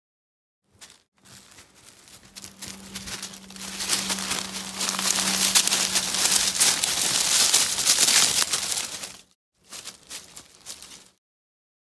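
Dry fallen leaves crackling and rustling, building to loudest in the middle, breaking off briefly, then returning before stopping abruptly. A faint steady low hum runs underneath.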